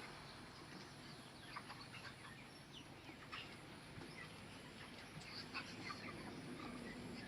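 Flock of broiler chickens making faint, scattered short peeping and clucking calls.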